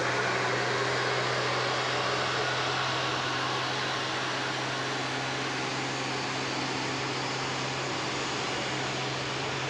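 Tour bus engine running steadily, a constant hum under an even rush of noise, with no change in pitch.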